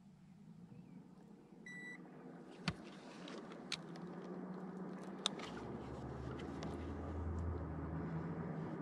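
A handheld digital fish scale gives one short beep about two seconds in, followed by a few sharp clicks and knocks as the bass is handled and hung on it. Under this runs a low steady hum that grows louder.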